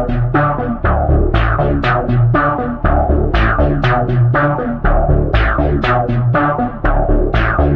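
Loud electronic music: a fast, steady drum-machine beat of about four hits a second under synthesizer notes and heavy bass.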